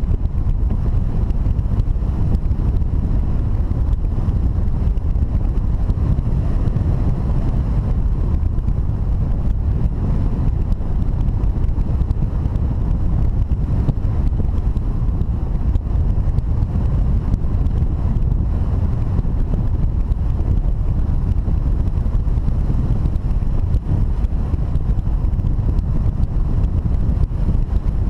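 Wind noise from airflow buffeting the microphone of a camera mounted on an unpowered hang glider in flight: a steady, loud low rumble with no engine and no breaks.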